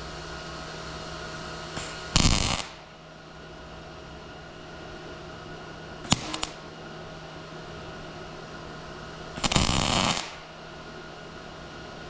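MIG welder arc crackling in short bursts as practice spot welds are laid on scrap metal: a half-second burst, a brief sputter a few seconds later, then a longer burst of about a second. A steady hum runs underneath.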